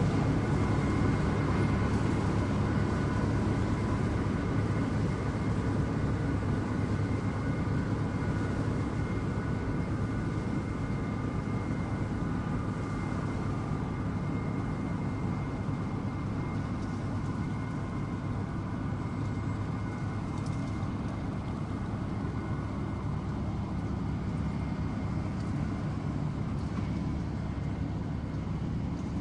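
Tractor engine running steadily, with a thin steady high whine above the low rumble, growing slowly quieter over the half-minute.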